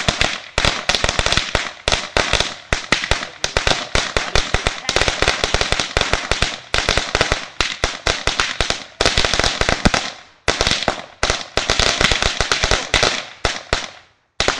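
A long string of firecrackers going off in rapid, continuous popping, with brief lulls about ten seconds in and near the end.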